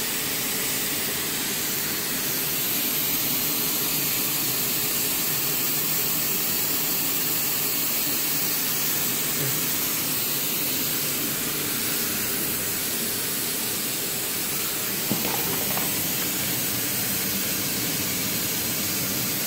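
Steady hiss of a hot air tape sealing machine's hot-air blower running, with a single brief click about three quarters of the way through.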